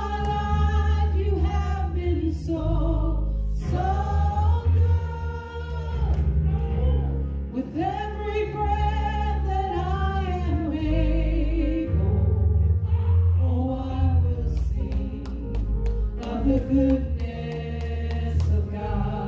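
A praise team of several voices singing gospel worship music, long wavering notes in phrases of a few seconds, over an accompaniment with a strong, steady bass.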